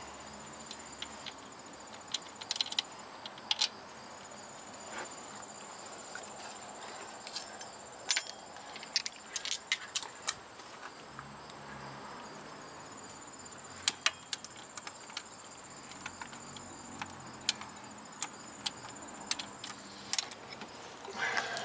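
Scattered metallic clicks and clinks of a bolt and hand tools against the engine as the starter's top mounting bolt is fitted. Behind them runs a steady high insect trill that breaks off a couple of times.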